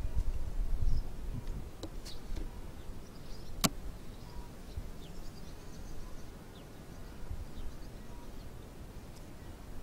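Honeybees buzzing over an open wooden hive, with a low rumble in the first second and one sharp click about four seconds in as the metal hive tool knocks against the wooden frames.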